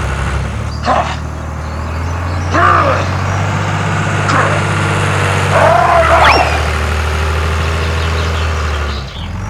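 Mini tractor's small motor running with a steady low hum that shifts pitch about six seconds in, with four short, high, yelping calls over it.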